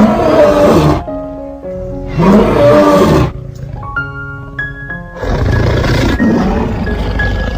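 A big cat roaring three times, each a loud, rough call, the last one longer, over background music with plucked notes.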